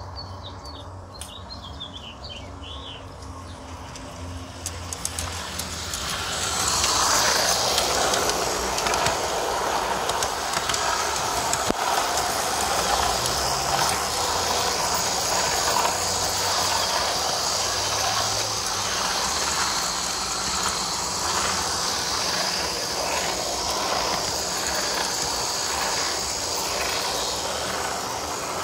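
A G-scale Aristo-Craft Mikado 2-8-2 model locomotive running on garden-railway track during its break-in run: its electric drive and wheels on the rails give a steady running noise with small irregular clicks. The noise grows louder about six seconds in and holds. Birds chirp briefly near the start.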